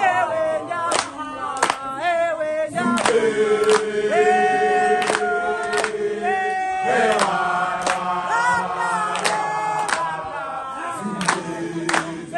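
A group of young people singing a gwijo, a South African chant song, in unison and harmony, with long held notes. Sharp hand claps keep a steady beat about every two-thirds of a second.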